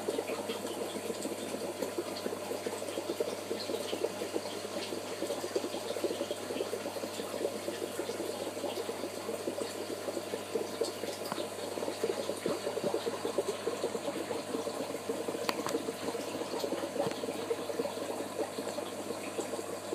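Aquarium filter running: a steady churning and trickling of water with small ticks and bubbles, over a faint low hum.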